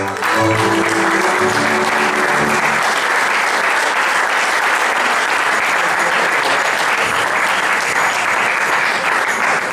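Audience applauding steadily and loudly after a folk dance, with the folk band's last chord ringing out and dying away in the first two seconds or so.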